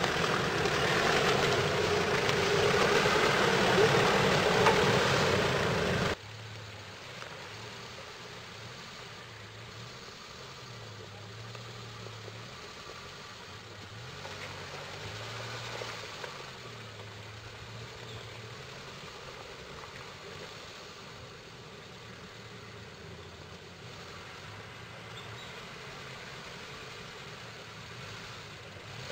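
Land Rover Defender 90 Td4 turbodiesel engine working off-road: loud with a dense rushing noise for about six seconds, which cuts off suddenly, then a quieter, steady low engine hum that rises and falls slightly in pitch.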